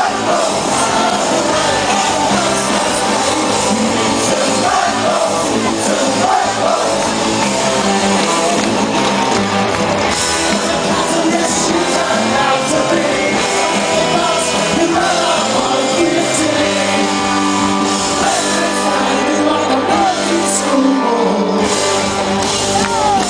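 Rock band playing live, with a lead vocal sung over the band, loud and continuous.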